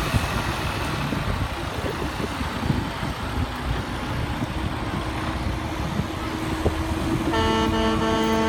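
Diesel prime mover without a trailer driving slowly past, its engine running low and steady. A truck horn sounds once near the end, for about a second and a half.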